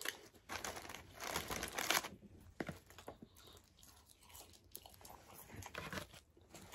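Fast-food paper packaging crinkling and a ketchup packet being torn open, in irregular bursts, the loudest in the first two seconds.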